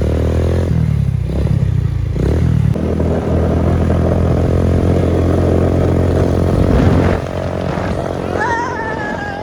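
Motorcycle engine running steadily while being ridden slowly; the level drops noticeably about seven seconds in.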